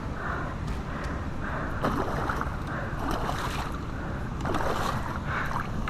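Steady rush of water from a river spillway, broken by scattered splashes.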